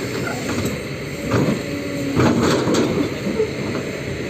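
Excavator running with a steady low engine rumble, with metal scraping and clanking about a second in and again around two seconds in.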